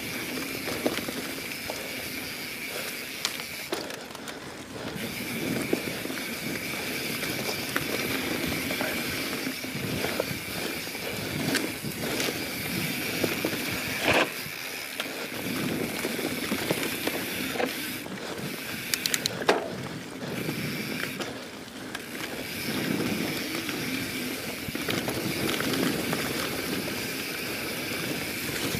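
YT Jeffsy 27 mountain bike rolling over dirt singletrack: tyre noise with the rear hub's freewheel ratchet buzzing while coasting. Scattered sharp knocks and rattles of the bike over bumps, the loudest about two-thirds of the way through.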